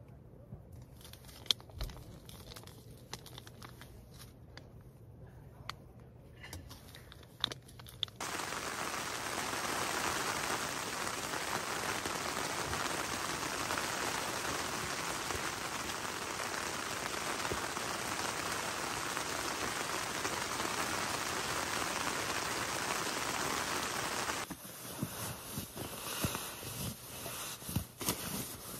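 Light crinkling and clicking handling sounds, then a steady hiss that starts suddenly about eight seconds in and cuts off suddenly about sixteen seconds later, with scattered clicks after it.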